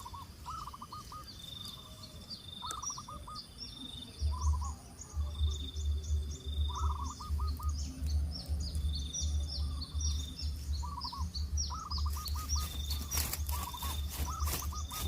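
Birds calling outdoors: short repeated trilled phrases and many quick high chirps, with an on-and-off high steady buzz. A loud low rumble comes in about four seconds in, and a run of rapid crackling clicks joins near the end.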